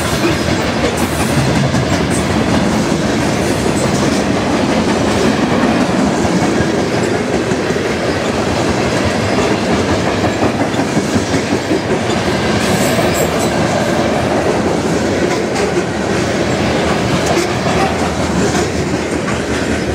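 Union Pacific freight cars (hoppers, boxcars and tank cars) rolling past close by, with a steady wheel-on-rail rumble and a few clicks from the wheels about two thirds of the way in. The train's last car goes by near the end.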